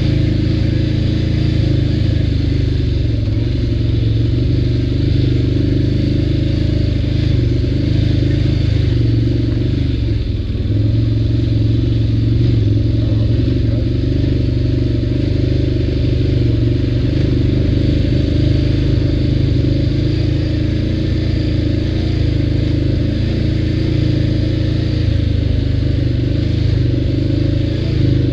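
ATV engine running steadily while riding, a continuous low drone that dips briefly about ten seconds in.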